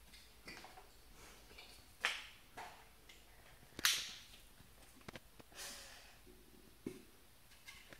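Full-face snorkel mask being pulled on and its head straps adjusted: scattered short rustles, clicks and sharp snaps of strap and plastic, the sharpest one a little before halfway.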